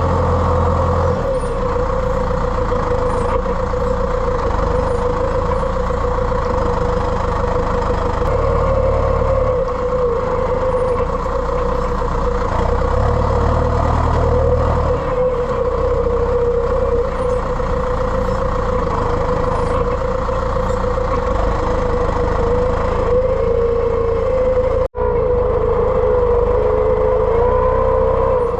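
Tractor engine running steadily under load, with a whine that wavers in pitch now and then, while round bales are unloaded. The sound drops out for an instant near the end.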